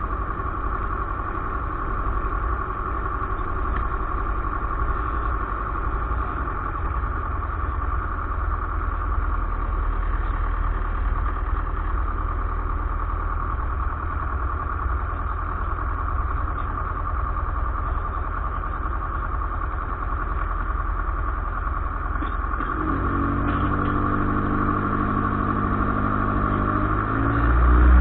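Light aircraft's engine running steadily, heard from inside the cabin with a constant hiss. About 23 seconds in the engine note begins to rise as power comes up, and it is louder near the end.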